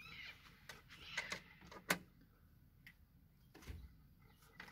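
A few sharp clicks and light knocks from toggle latches and the frame of a camper trailer's solar panel as it is unlatched and handled, the sharpest click about two seconds in.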